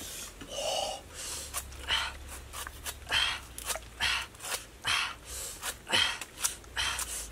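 Knife chopping into a hand-held pineapple, short sharp cuts about twice a second as the rind is hacked off.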